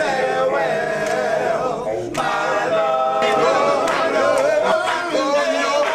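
Male vocal group singing a cappella in close harmony, several voices together, with a few sharp clicks along the way.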